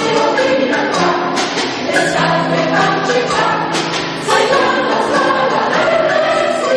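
A choir singing together, many voices sounding at once in harmony.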